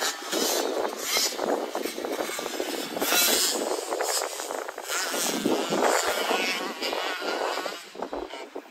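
Motocross dirt bikes revving on the track, with several engines overlapping and their pitch rising and falling as the riders work the throttle.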